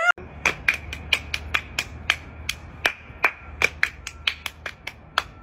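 Two people playing a hand-clapping game: a quick run of sharp hand claps, about four or five a second, over a steady low rumble.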